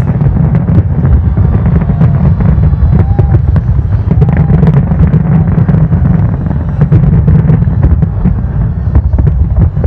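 Aerial fireworks display at full intensity: rapid, overlapping shell bursts over a continuous low rumble, with no break.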